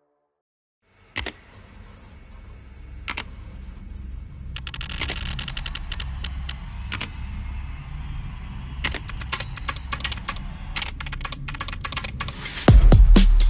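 Keystrokes on a SteelSeries Apex Pro TKL mechanical keyboard: a few single clicks, then quicker typing, over a low steady rumble that slowly gets louder. A sudden loud low boom comes near the end.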